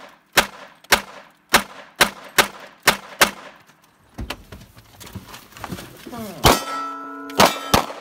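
A rapid string of about seven gunshots, roughly two a second, fired from inside a car through its windshield. After a quieter pause of small clicks, three more loud shots or impacts come near the end, followed by a metallic clang that keeps ringing.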